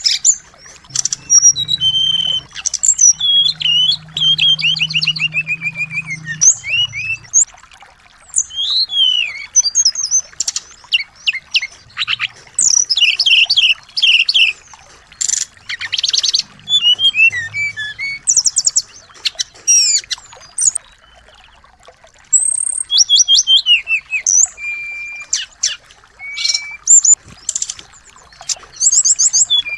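Small songbirds calling: quick high chirps, rapid trills and short rising and falling whistles, in bursts with brief pauses between them.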